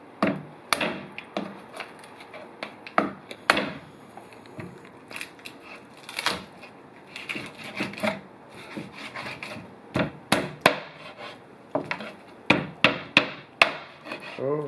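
Knife or cleaver chopping on a wooden cutting board: a run of irregular, sharp strikes, some in quick clusters, heaviest near the end.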